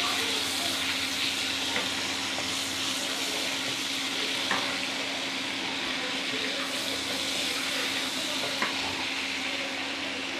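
Cumin seeds sizzling in melted butter and olive oil in a nonstick pan: a steady frying hiss, stirred with a wooden spatula, with a few sharp ticks.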